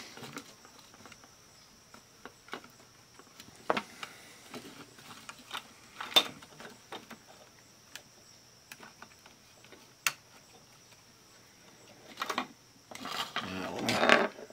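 Scattered small plastic clicks and taps as a portable cassette recorder's circuit board and plastic case are handled and fitted back together, with a longer spell of clattering and rubbing near the end.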